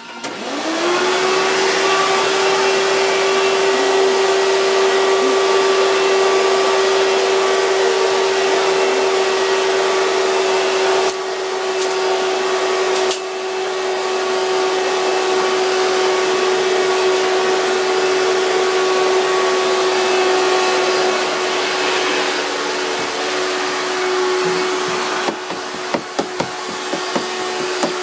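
Vacuum cleaner switched on, its motor spinning up within the first second to a steady whine over a loud rush of air, then running on. The sound drops a little partway through, and there are a few short knocks near the end.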